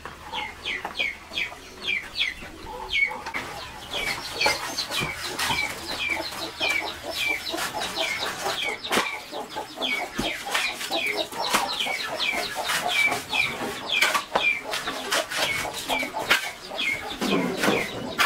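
Chickens calling: a high peep that drops in pitch, repeated about two to three times a second, with scattered sharp clicks and knocks.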